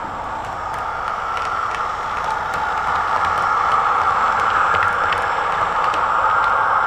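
00 gauge model diesel multiple unit running along the track, a steady whirring with scattered clicks of wheels over rail joints, growing louder as it approaches.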